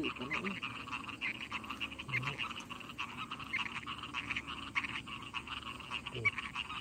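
A chorus of many frogs calling together, a steady chatter of rapid pulsing calls.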